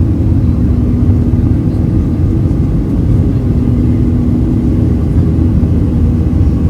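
Boeing 737-300's CFM56 jet engines heard inside the passenger cabin: a steady, loud low rumble with a constant drone-like hum over it.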